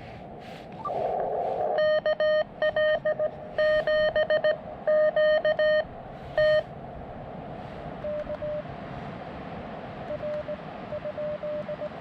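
Morse code on a portable QRP ham radio transceiver. A loud, buzzy tone is keyed in dots and dashes for about five seconds. After a pause, a much fainter Morse signal at the same pitch answers, over steady receiver hiss.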